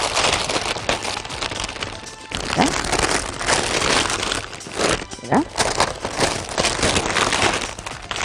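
Baking paper crinkling and rustling as a filled sponge sheet is rolled up in it by hand, with music underneath.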